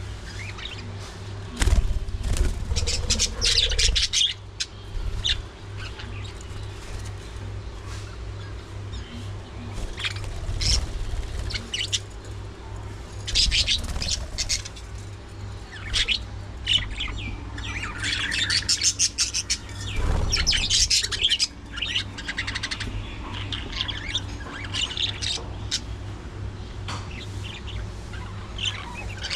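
A flock of budgerigars chirping and chattering in repeated bursts over a steady low hum. There are two spells of loud low rumbling thumps, about two seconds in and again about twenty seconds in.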